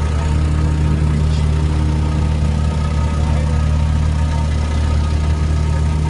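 Telehandler's diesel engine idling steadily close by, a constant low-pitched running note that does not rise or fall.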